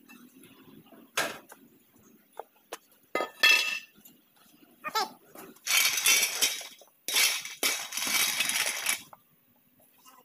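Metal clinks and knocks of tools and parts being handled, followed by two longer stretches of harsh scraping noise, each lasting a second or two.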